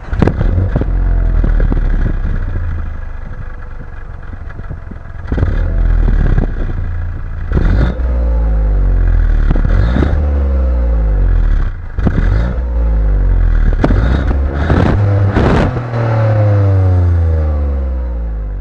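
Inline three-cylinder car engine heard at its tailpipe, idling and then revved about six times, each rev rising in pitch and falling back to idle. There are sharp cracks near several of the rev peaks.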